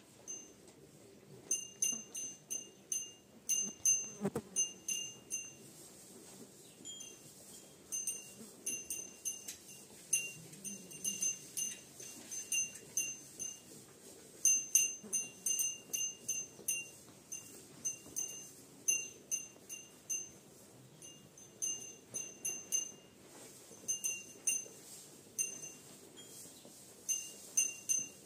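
Small metal bell clinking again and again at one fixed pitch, in quick irregular clusters, as feeding cattle move. A dull knock about four seconds in.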